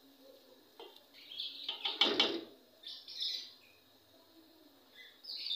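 Small birds chirping in short bursts, a few times over, with a brief clatter about two seconds in.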